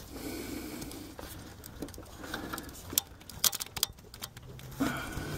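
Tin snips and a hand working among engine-bay belts and hoses: a few scattered sharp clicks and light scraping, the snips being worked in to cut a belt.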